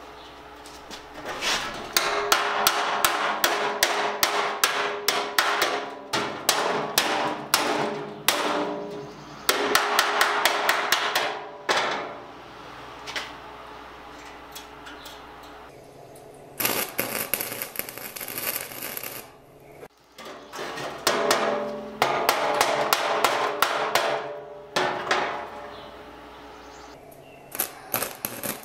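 Arc welding crackling in several bursts of a few seconds each, with pauses between, as the edges of badly pitted sheet steel from an old fuel oil tank are tacked together. The pitting and rough, unground edges make this steel weld badly.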